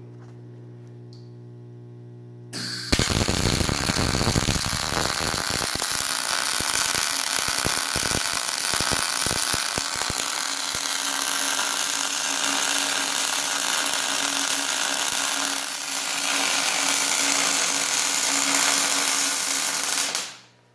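Arc welder humming at idle, then the arc strikes and a weld bead is run with a wide weave: a loud, steady crackling hiss that is spattery at the start, held for about seventeen seconds and cut off suddenly near the end.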